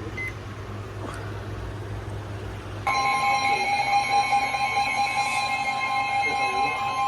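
Weather-radio emergency alert attention tone: after a few seconds of low hum and faint static, a loud, steady two-pitch tone starts abruptly about three seconds in and holds. It announces the severe thunderstorm warning that is about to be read.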